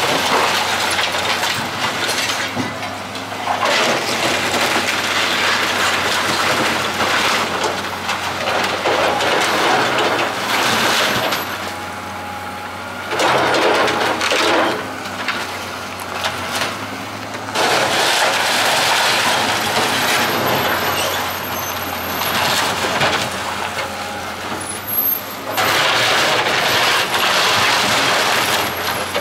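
Tracked hydraulic excavator demolishing a wood-framed building: its diesel engine runs steadily underneath while timber roof and wall framing crunches, splinters and crashes down in repeated loud bursts.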